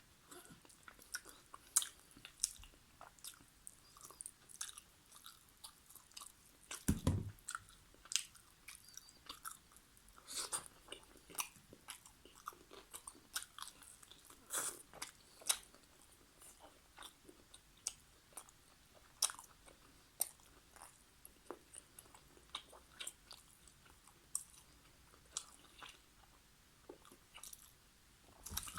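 Close-miked eating: irregular chewing and biting, with many sharp wet mouth clicks. One louder, deeper thump comes about seven seconds in.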